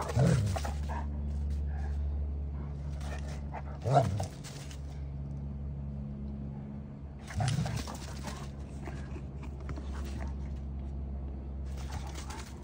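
Two dogs play-fighting: short bursts of growling and barking with scuffling, loudest at the start, about four seconds in and about seven and a half seconds in. A steady low hum runs underneath.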